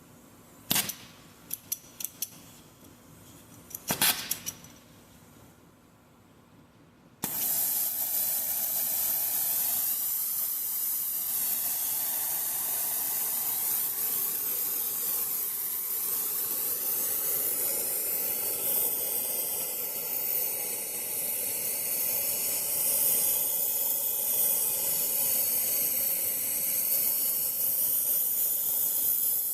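A few sharp clicks, then about seven seconds in a welding arc from a budget welder strikes and runs with a steady loud hiss.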